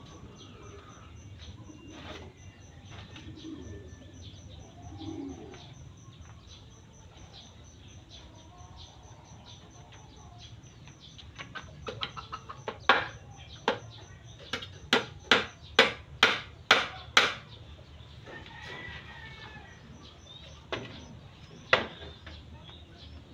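A hand tool striking a bamboo pole: about a dozen sharp, loud knocks in quick succession, roughly two a second, starting about halfway in, then two more a few seconds later.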